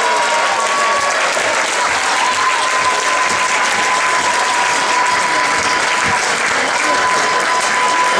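Stadium spectators applauding and cheering after a goal. A long steady tone sounds over the applause, with short breaks about a second in and near the end.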